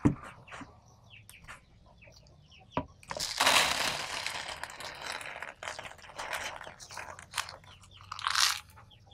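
A knock as a plastic tub is set down, then coarse volcanic sand (pasir malang) poured from a plastic pot into a plastic tub: a gritty rattle and hiss for about two seconds, followed by scattered small clicks and a short scrape near the end.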